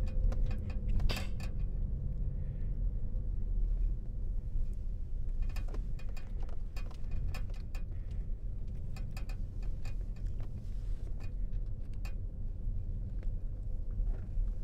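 Inside a car driving slowly: a steady low engine and tyre rumble, with scattered light clicks and ticks.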